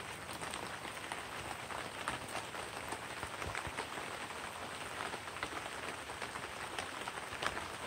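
Steady light rain, a fine patter of many small drops.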